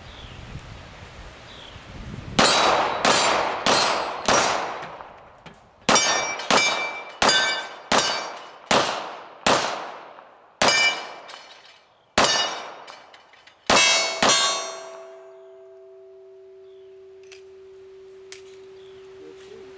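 H&K P30L pistol in .40 S&W firing at steel targets: a quick string of shots, a short pause, then about a dozen more at an uneven pace, each shot followed by the clang of hit steel plates. After the last shot a low ringing tone lingers for several seconds.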